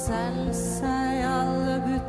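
A woman singing a slow, tender song in Norwegian over a soft band accompaniment, her held notes wavering with vibrato across two short phrases, with hissing 's' sounds between them.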